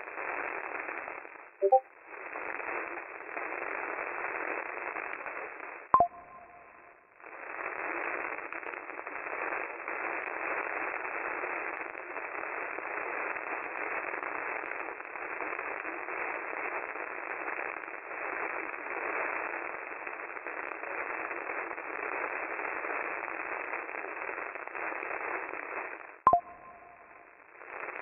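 Radio receiver static: a steady, narrow-band hiss. About 6 seconds in it is cut by a sharp click and a brief two-note blip and drops out for about a second. Another click and blip come near the end.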